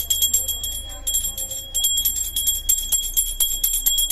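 Small metal hand bell rung rapidly and continuously during worship, its clapper striking many times a second and leaving a steady high ringing tone.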